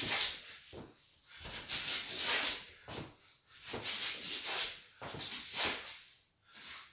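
A man's sharp, hissing exhalations, one with each punch as he shadowboxes hooks and ducks, coming roughly every one and a half to two seconds.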